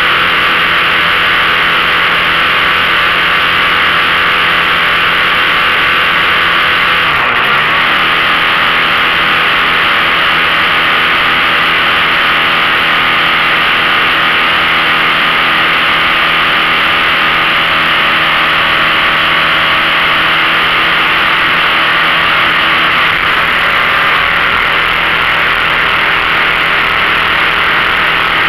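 15 hp outboard motor on a 14 ft V-bottom boat running steadily under way, under a heavy steady rushing hiss. About seven seconds in, the engine note dips briefly and comes straight back up.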